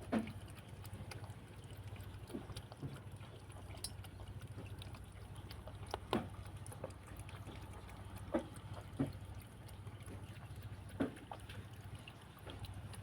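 Cat lapping water from a bowl: soft, irregular wet laps and clicks every second or so over a steady low hum.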